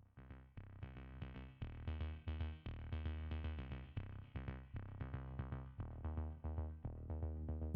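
Background electronic music with a steady beat and a low bass line.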